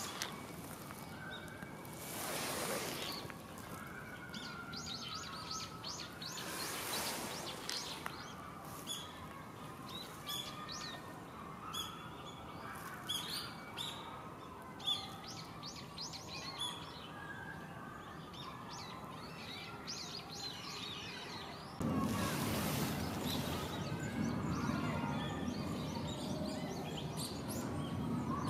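Outdoor ambience of small songbirds chirping and trilling among trees, with two brief swells of rushing noise. About three-quarters of the way through, a louder, steady rushing noise with a low rumble begins abruptly under the birdsong.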